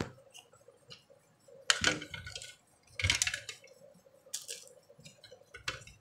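Clatter of a washing machine control-panel circuit board and its plastic housing being handled and knocked about, a few sharp knocks (the loudest about two and three seconds in), with a faint steady hum underneath.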